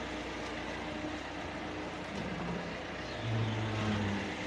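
Small hatchback car's engine running as the car drives slowly away, with a brief louder low tone about three seconds in.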